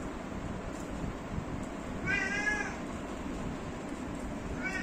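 A cat meowing: one drawn-out meow about two seconds in and a short one at the very end.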